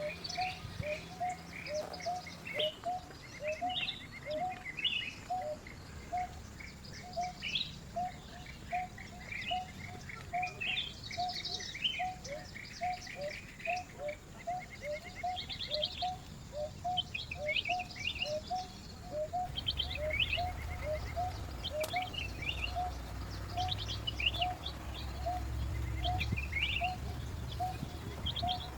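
Wild birds chirping and trilling, several kinds at once, over a low call repeated evenly about twice a second. A low rumble comes in during the second half.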